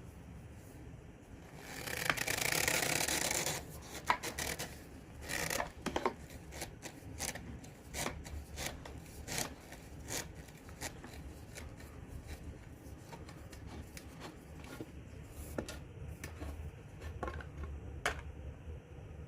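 Quickie push broom's parts being worked by hand: a rubbing scrape about two seconds in, then a run of scattered clicks and short scrapes as the head, bracket and handle are handled.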